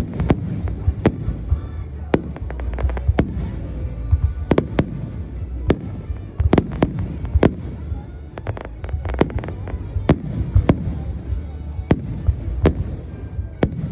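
Fireworks display: sharp bangs of bursting shells at irregular intervals, often more than one a second, over a continuous low rumble.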